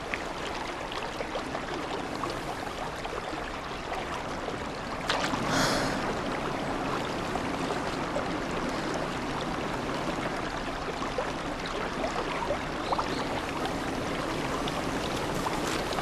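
Mountain stream rushing over flat rocks, a steady flow, briefly louder about five seconds in.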